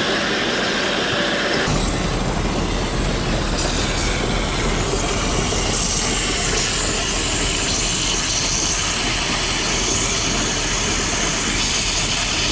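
Round baler running slowly off a tractor PTO, its chains and rollers clattering steadily while they are being oiled after winter storage. Behind it, the JCB Fastrac's Cummins diesel is ticking over. A deeper steady hum joins about two seconds in.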